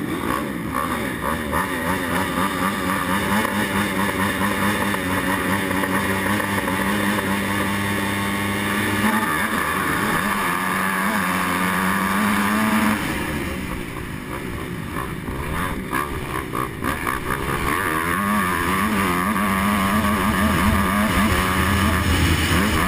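Honda 250 motocross bike engine at full throttle off the start, revving hard and shifting up. About thirteen seconds in the engine note drops as the rider eases off, then it climbs again.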